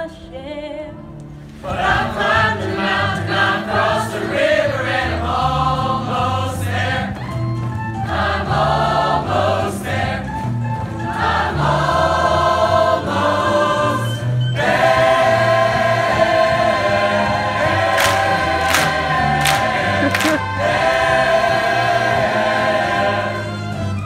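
A large high school choir singing; the choir comes in loudly a couple of seconds in and sings on with a short break about halfway through.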